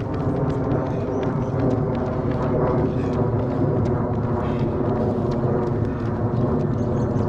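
Many runners' quick, irregular footfalls passing by, over a steady low hum.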